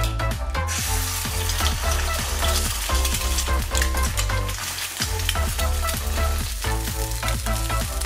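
Eggs frying in a hot non-stick pan, a steady sizzle that swells up about a second in. Background music with a beat plays under it.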